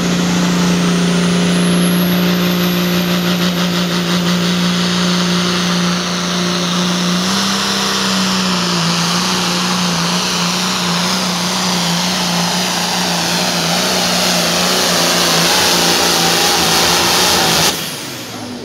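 Turbocharged diesel Hot Farm pulling tractor running flat out under load, a steady engine note with heavy exhaust noise and a rising turbo whine in the first few seconds. The sound drops off suddenly near the end.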